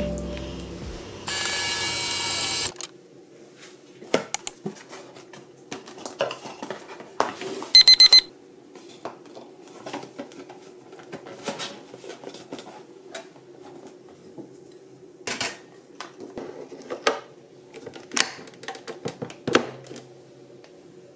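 Background music ending about three seconds in, then scattered clicks and taps as a cardboard capsule box, plastic coffee capsules and the capsule holder of a capsule coffee machine are handled. A quick run of electronic beeps sounds about eight seconds in.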